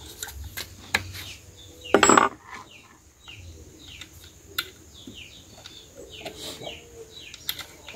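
Light metallic clinks of a steel T-handle spark plug wrench and small screws as the slotted screws of a Husqvarna 61 chainsaw are undone and turned out, with one louder metal clank about two seconds in.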